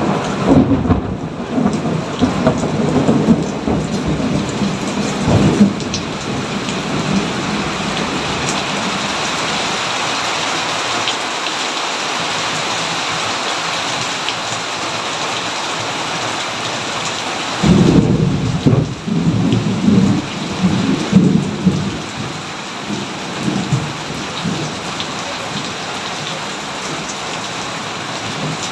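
Steady heavy rain with rolls of thunder: one rumble at the start that dies away after about six seconds, and a second that breaks suddenly about two-thirds of the way through and rumbles on for several seconds.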